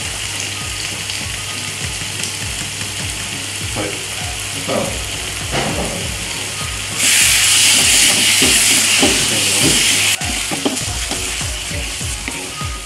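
Onion and tomato masala frying in a kadai, a steady sizzle with a wooden spatula scraping and knocking against the pan as it is stirred. About seven seconds in, the hiss turns much louder for about three seconds, then drops back suddenly.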